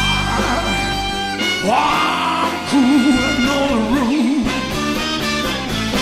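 Live rock-and-roll band of electric guitars, bass, drums, keyboards and saxophone holding a long closing chord. A singer's voice glides up and holds a long wavering note over it.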